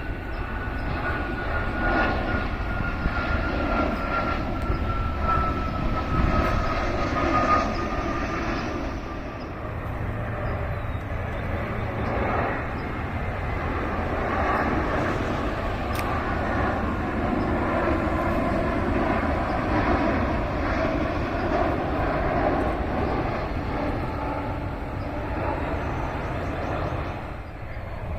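Aeroplane flying over: a steady engine rumble, with a thin whine that slowly falls in pitch through the first several seconds.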